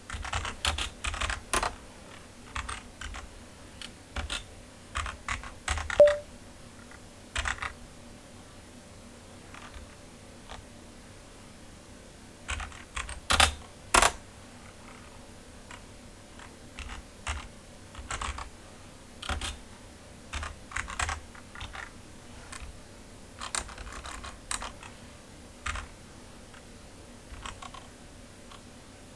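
Computer keyboard typing in irregular runs of keystrokes, with a lull of a few seconds partway through and one sharper keystroke about six seconds in.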